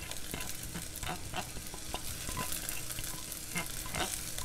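Chopped fennel and onion sizzling in olive oil in a pot on medium-high heat, with a few light taps and scrapes as a spoon scrapes onion out of a measuring cup into the pot.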